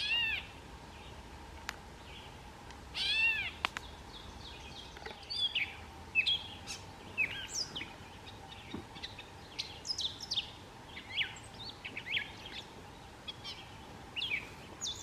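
Gray catbird calling: two cat-like mewing calls, one at the start and one about three seconds in, then a long run of quick, varied, jumbled song notes.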